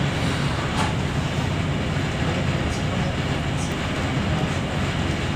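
Steady running noise of a passenger train in motion, heard from inside the carriage, with a faint click about a second in.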